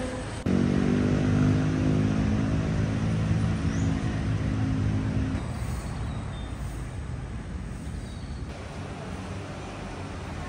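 Road traffic outside an airport terminal. For the first few seconds a vehicle engine runs at a steady pitch, then it fades into fainter, even traffic noise.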